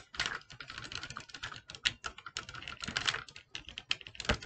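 Plastic parts of an Optimus Prime transforming toy clicking as its arms are moved and folded by hand: a quick, uneven run of small clicks, with a few louder ones.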